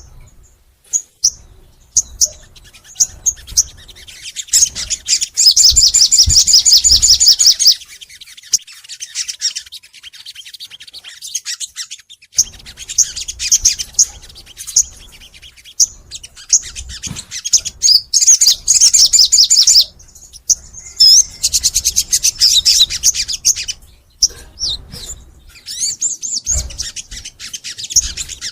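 Sogon songbird singing hard in full song: long, rapid trills of high repeated notes lasting a few seconds each, three times, with short chirps and calls between them.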